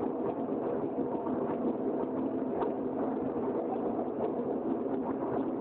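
Crucible furnace plant running with a steady noise, with a faint hum and a few light ticks over it.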